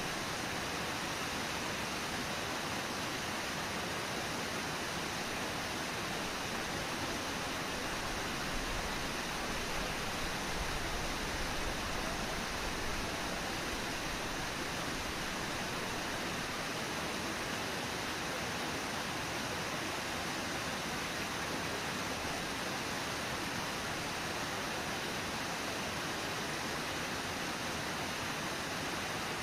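Steady rushing of a waterfall and the white water churning below it.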